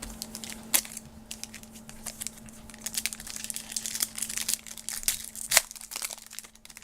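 Foil trading-card pack wrapper crinkling and tearing as it is opened: a busy run of sharp crackles, with loud snaps a little under a second in and about five and a half seconds in.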